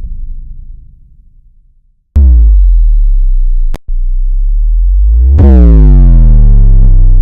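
Synthesized bass-drop sound effect, loud: a rumble fades out, then a deep electronic tone sweeps down in pitch and holds low, stops briefly, and drops again to hold to the end.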